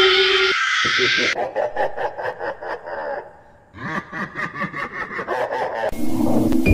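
Creepy ghost-laugh sound effect: two bouts of rapid, rhythmic laughter, the first fading out before the second starts. A high, wavering scream cuts off about half a second in, and near the end a steady electronic drone begins.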